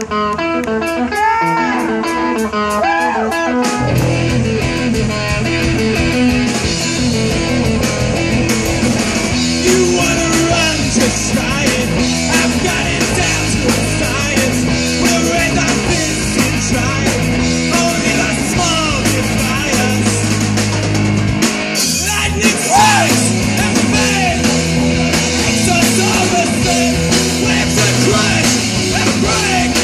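Live rock band on an outdoor stage PA. An electric guitar plays alone for the first few seconds, then the drums and bass come in about four seconds in, with a short break about twenty-one seconds in before the full band resumes.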